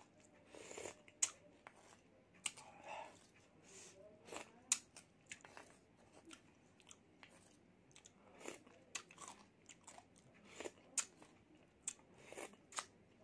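Close-up eating sounds of a person sipping spicy broth from a wooden spoon: irregular wet mouth clicks and smacks with short sips, and the spoon scooping in a stone mortar.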